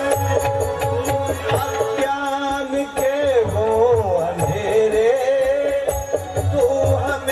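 Live devotional bhajan singing through microphones: a sung melody that bends and wavers in pitch, over steady held tones and a low repeating beat.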